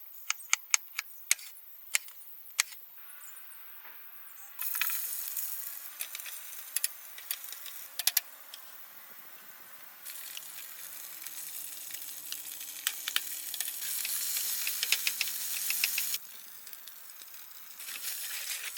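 Corned beef and noodles sizzling in a camp pan, with sharp clicks and taps of utensils against the pan. The sizzle comes and goes in several stretches.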